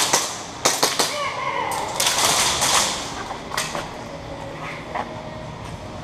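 Airsoft guns firing: a sharp crack at the start, then three quick snaps about a second in, with a noisy rush a couple of seconds in and a few scattered clicks later.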